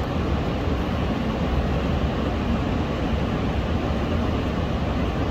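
Niagara Falls' water running as a steady roar, one unbroken rushing rumble heaviest in the low end.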